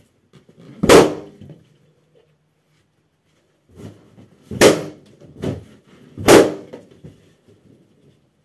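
Latex party balloons bursting under a stockinged foot: three loud, sharp pops, about a second in, near the middle and a second and a half later, with a few softer knocks between.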